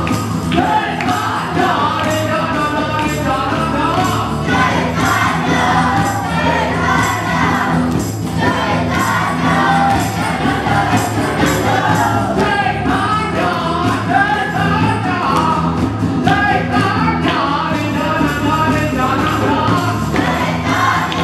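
A kirtan: a crowd singing a devotional chant together to acoustic guitars, with hand clapping and percussion keeping a steady beat.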